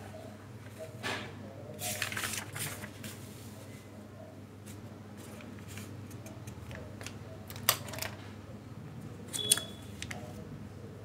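Paper rustling and crinkling as the pages of a printed exam booklet are handled and turned, with a bunch of rustles a couple of seconds in and two sharp clicks later on, over a low steady hum.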